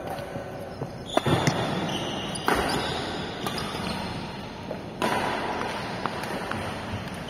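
Badminton rackets striking a shuttlecock during a doubles rally: sharp hits at irregular intervals over a steady background noise.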